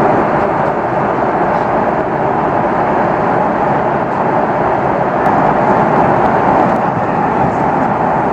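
Steady roar of jet engines and rushing air heard inside the cabin of an Airbus A330-300 airliner.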